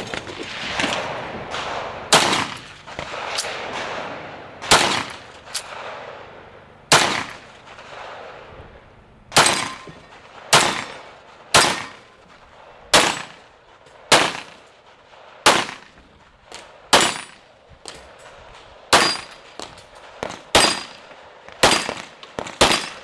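Pistol shots fired through an IPSC practical shooting stage: single shots and quick pairs, roughly one or two a second, broken by short pauses between strings. Each shot has a brief echo.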